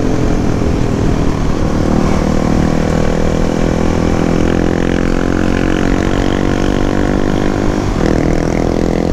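Suzuki DR-Z400 supermoto's single-cylinder four-stroke engine running under way, its pitch drifting slowly as it pulls, with a brief change about a second and a half in and again near the end, like gear changes. Wind rumbles on the microphone underneath.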